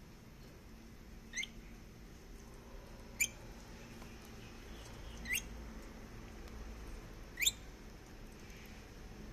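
Rainbow lorikeet giving four short, rising whistled chirps about two seconds apart, the whistling its owner takes as a sign that the food tastes good.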